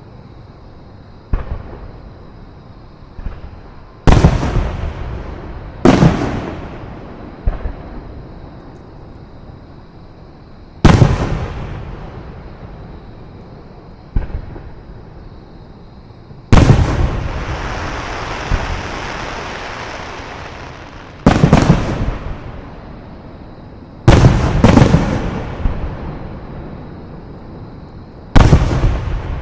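Fireworks display: about a dozen sharp booms every few seconds, each trailing off in echo, some coming in quick pairs. One burst about two-thirds of the way through is followed by several seconds of hissing crackle.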